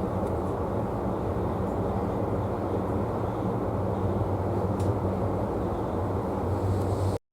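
Tokyu 3020 series electric train running: a steady rumble of wheels and running gear with a low hum. It stops abruptly just before the end.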